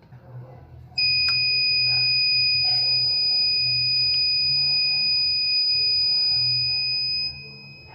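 Piezo buzzer of a breadboard car-alarm circuit sounding a steady, high-pitched continuous tone. It starts about a second in and weakens near the end.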